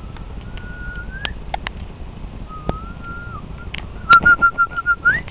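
A person whistling: two long held notes, each sliding upward at its end, then near the end a quick run of about seven short notes finishing on a rising note. A few sharp clicks sound between the notes.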